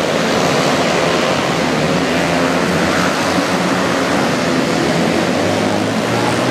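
Several flat-track racing motorcycles running hard together, their engines overlapping in a steady loud drone with pitches that waver up and down as the riders work the throttle through the turns.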